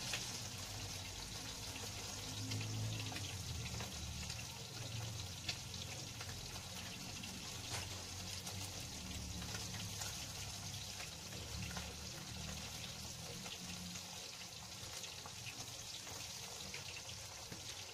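Anchovy fritters (tortang dilis) frying in hot oil in a pan: a steady sizzle with scattered crackles and pops.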